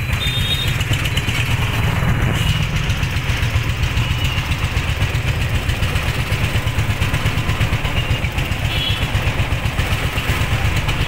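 Vehicle engine idling with a steady, rapidly pulsing low throb, under the hiss of street traffic.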